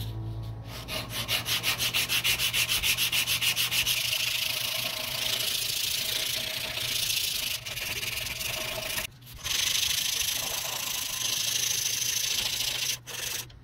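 A strip of cloth-backed sandpaper pulled back and forth around a carved wooden lure body, shoe-shine style, sanding the body's edges round. It makes a rasping rub: quick strokes, about six a second at first, then a steadier rasp broken by two short pauses.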